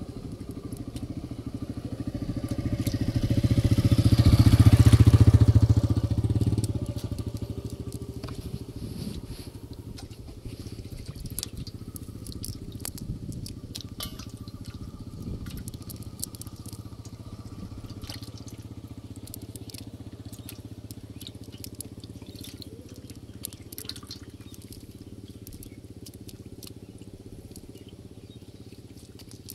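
A motor vehicle's engine passes close by, swelling to its loudest about four to five seconds in and fading away by about seven seconds, over a steady low engine hum. Light scattered clicks and ticks follow from about ten seconds in.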